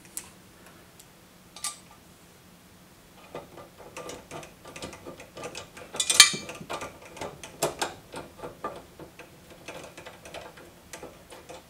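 Small metal clicks and rattles of screws and the steel mounting plate and brackets of a Kanto MTM65 TV mount being handled and fitted by hand to the back of a TV. A couple of single clicks at first, then from about three seconds in a long run of irregular clicking, loudest around six seconds in.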